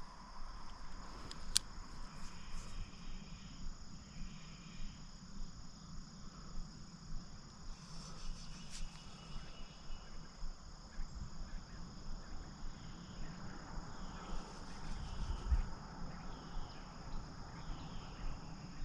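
Steady high-pitched insect chorus, a continuous shrill drone, with a low rumble underneath and a couple of faint clicks.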